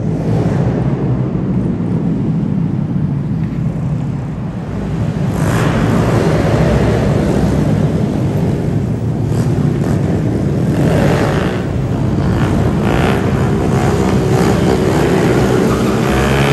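Mini bike engines running and revving as riders pass doing wheelies, with car traffic. The engine note rises and falls, and it gets louder about five seconds in.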